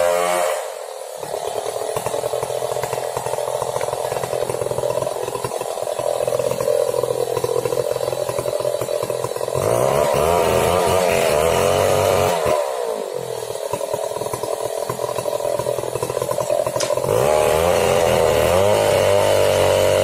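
Two-stroke chainsaw cutting into the trunk of a large tree, the engine running hard with its pitch wavering under load. It grows louder about halfway through and again for the last few seconds, with the revs dropping in between.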